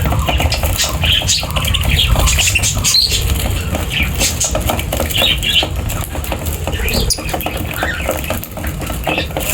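Small birds fluttering and rustling, with many short scratchy clicks and brief chirps over a steady low rumble.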